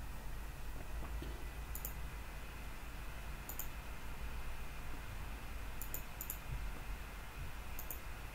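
Computer mouse clicks: about six short, sharp clicks a second or two apart, two of them close together near the middle, over a low steady hum.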